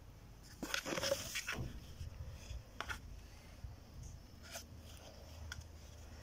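A cat pawing and clawing at a cardboard tube, making light scrapes and scuffs. A short burst of rustling noise comes about a second in, and a few faint clicks follow.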